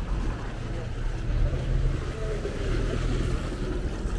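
Aquabus passenger ferry's engine running under way with a steady low hum.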